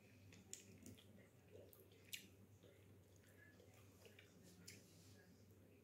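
Faint eating sounds: quiet chewing with scattered small mouth clicks, the sharpest about half a second and about two seconds in, over a steady low hum.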